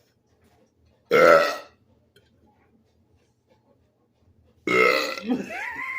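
A man burping loudly, brought on by gulping carbonated Mountain Dew: one short burp about a second in, then a long drawn-out burp starting near the end whose pitch wavers up and down.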